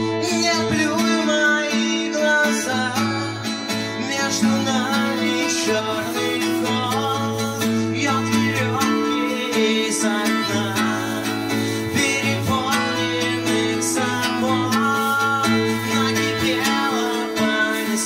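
Live band music led by a strummed acoustic guitar, with a low bass line that drops out and comes back a few times.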